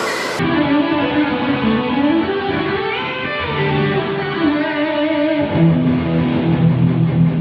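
Electric guitar being sound-checked through an amplifier with effects, playing sustained melodic notes. Lower, stronger notes come in about halfway through.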